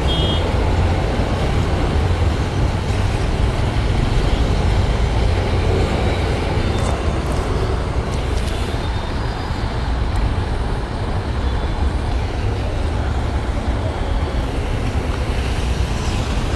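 Steady wind and road noise from a motorcycle being ridden, its engine running under a heavy low rumble.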